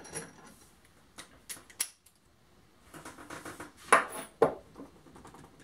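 Sharp metallic clicks and clatter of a padlock being handled in and taken out of a small metal bench vise, with a few separate clicks first, then a rattle and two louder knocks about four seconds in.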